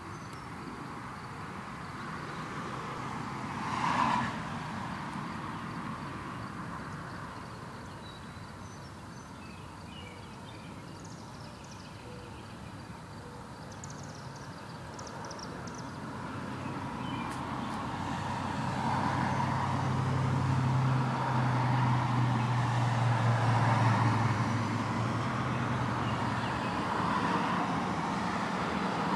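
Outdoor ambience in which a motor vehicle goes by: its engine hum swells slowly, is loudest in the last third, and eases off near the end. A short, louder noise comes about four seconds in.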